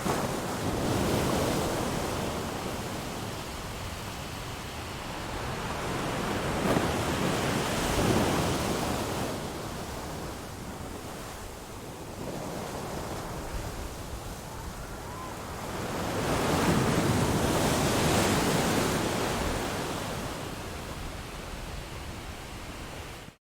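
Sea surf: waves washing in and drawing back, the rushing noise swelling three times, about seven to eight seconds apart, and cutting off abruptly at the very end.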